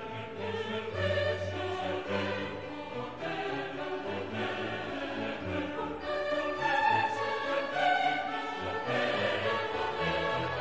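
Background music with many sustained notes sounding together.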